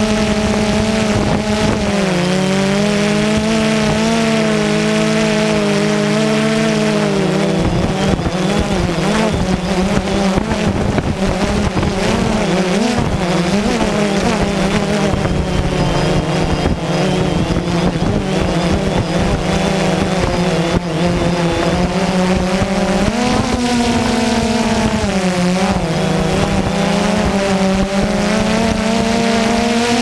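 A DJI Phantom 2 quadcopter's four brushless motors and propellers humming loudly, heard from its own on-board camera. The pitch wavers as the motors change speed, dropping about two seconds in and rising and dipping again near the end.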